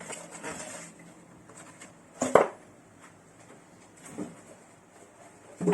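Rustling of packaging, then three sharp knocks and clunks as espresso maker parts are handled and set down, the loudest a little over two seconds in.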